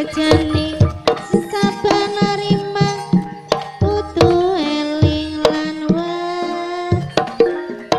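Javanese gamelan music for ebeg (Banyumasan kuda lumping): repeated hand-drum strokes under long held melody notes that bend in pitch at times.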